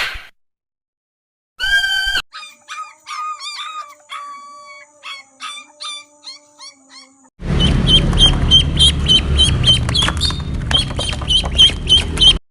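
A sequence of different animal calls: a short bleat-like call about two seconds in, then a run of short chirping notes, then for the last five seconds a loud rough noise with a high chirp repeated about three times a second.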